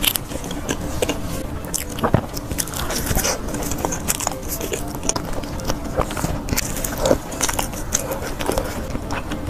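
Close-miked chewing and biting of soft toast, with frequent short wet clicks and smacks of the mouth.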